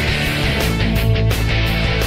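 Loud rock music with guitar over a steady drumbeat.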